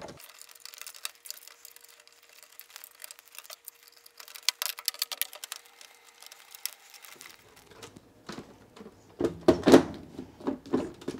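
Plastic clicking and rattling as wire-harness connectors are pushed onto a washer's control board and its plastic console housing is handled, with louder plastic knocks near the end as the console panel is lowered shut.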